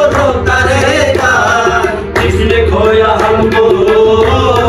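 Qawwali music: men singing in bending, held lines over tabla drumming and harmonium, with a short dip about two seconds in.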